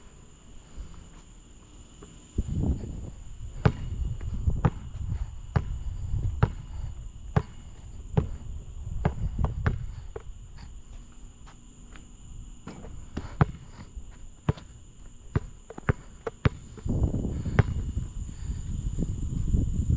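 Basketball dribbled on a hard court, sharp bounces coming roughly once a second through the middle of the stretch, with low rumbling noise in between.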